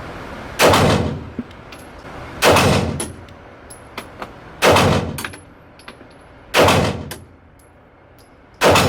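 Smith & Wesson M&P 2.0 Metal pistol fired five times in slow, aimed fire, one shot about every two seconds, each shot followed by a short fading ring.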